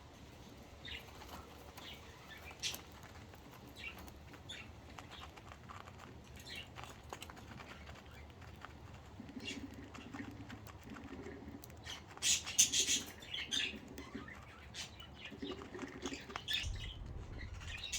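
Pet budgerigars chirping and fluttering in their cage: short chirps and light scuffling clicks scattered throughout, with a louder burst of chirps and wing flapping about two-thirds of the way in.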